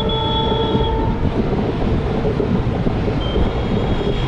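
Passenger train running along the track, heard at its open doorway: a steady, loud rumble of wheels and carriage. A thin, high steady squeal sounds over it in the first second and again near the end.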